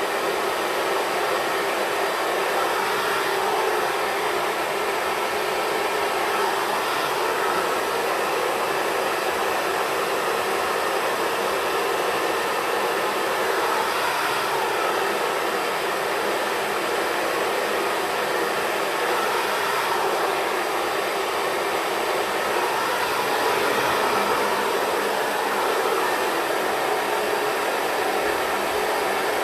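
Xtava Pro hair dryer running steadily on a person's hair, an even blowing rush of air and motor with no change in speed.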